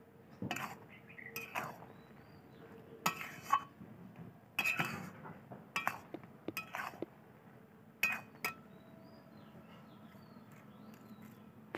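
A long steel spatula scraping and clinking against the sides of a steel karai as a thick, sticky jujube pickle is stirred. About a dozen irregular metallic clinks and scrapes, the busiest stretch around three to five seconds in and a last pair about eight seconds in.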